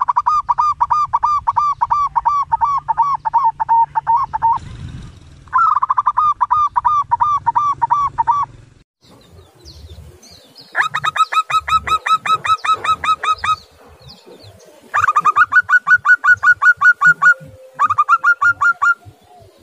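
Zebra dove (perkutut) calling: rapid runs of staccato cooing notes, about four a second, in five bouts separated by short pauses.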